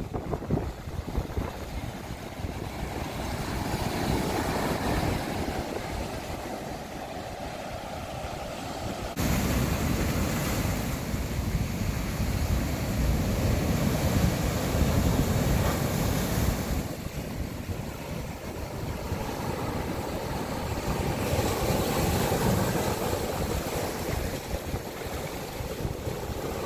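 Ocean surf breaking and washing over shoreline rocks, with wind buffeting the microphone. The sound changes suddenly about nine seconds in.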